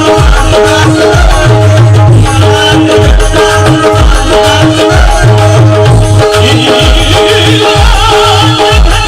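Instrumental qawwali music with no singing: held melody notes over a steady, driving hand-drum beat with other percussion.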